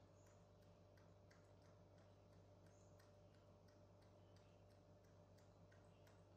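Near silence with faint, irregular small clicks, a few a second, from baby macaques sucking through the straws of drink boxes, over a low steady hum.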